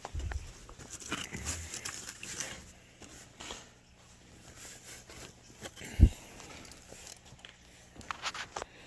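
Handling noises as toy tractors and their boxes are picked up and moved: rustling and light clicks, with one sharp knock about six seconds in.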